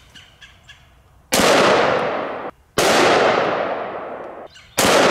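Three AR-15 rifle shots firing 5.56 full metal jacket rounds, about a second and a half apart, each followed by a long echo that cuts off sharply.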